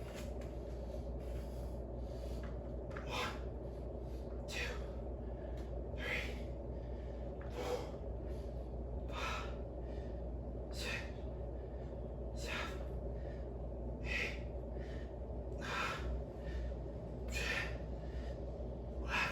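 A man breathing hard while lifting weights, with a forceful breath about every one and a half seconds in a steady rhythm, as he works through dumbbell row reps. A steady low hum runs underneath.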